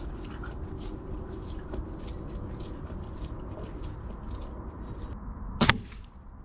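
A single shot from a .22 air rifle, the Rainson Edge-X, about five and a half seconds in: one short, sharp report and by far the loudest sound. Before it comes a faint rapid ticking, about four ticks a second, which stops shortly before the shot.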